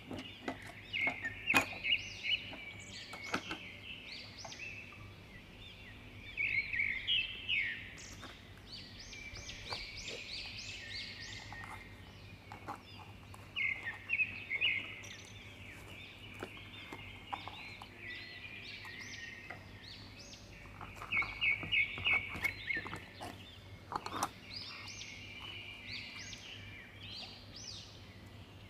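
A small bird chirping and trilling in bright repeated bursts every few seconds, over light taps and clicks of objects being handled.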